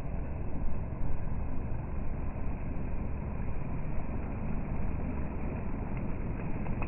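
HJ806 RC speedboat running on the water: a steady, noisy rumble with no sharp changes.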